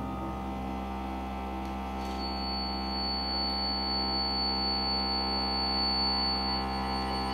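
Contemporary music for accordion and electronics: a sustained drone of many steady tones held over a low hum, with a thin high tone entering about two seconds in.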